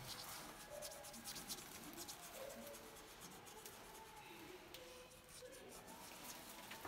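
Crayon scratching on paper in quick, short colouring strokes, faint.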